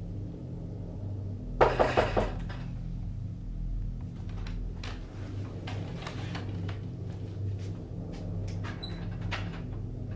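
A wooden door clattering loudly once, about a second and a half in, followed by faint scattered clicks and taps, over a steady low hum.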